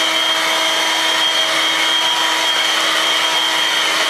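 Vacuum cleaner running steadily: a constant whine over an even rushing hiss.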